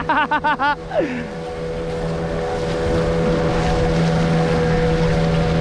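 Small outrigger fishing boat's engine running steadily while the boat is under way, with water rushing past the hull and wind on the microphone. In the first second a person's voice breaks out in a short, rapid burst that falls away.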